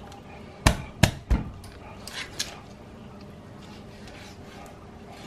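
Chef's knife chopping through raw rabbit onto a plastic cutting board: three sharp knocks in quick succession about a second in, then a couple of lighter taps.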